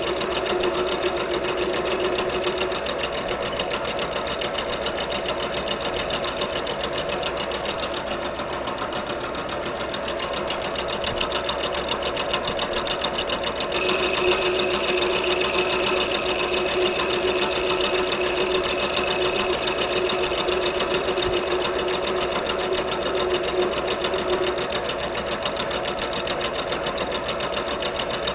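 Bridgeport milling machine running steadily, its spindle humming with a fast, even rattle. A high whine sounds at the start, drops out about three seconds in, comes back about halfway through and stops again near the end.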